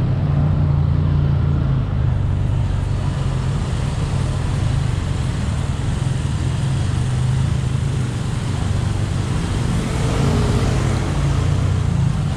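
Motorcycle engine running steadily at low revs while riding slowly in dense traffic, with the hum of surrounding vehicles.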